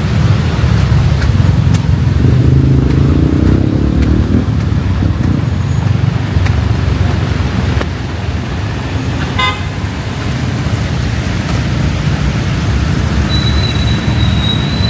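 Steady, loud city road traffic on wet streets, with a car horn sounding for about two seconds a couple of seconds in. A short high chirping comes about halfway through, and a thin, high, steady tone starts near the end.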